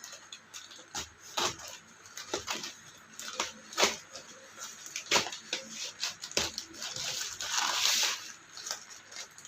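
A parcel being opened by hand: irregular clicks and crinkles of packaging, with a longer rustle about eight seconds in.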